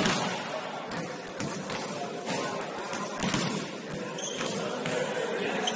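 Basketball game noise: a ball bouncing on the court and scattered irregular thuds over a steady hall noise.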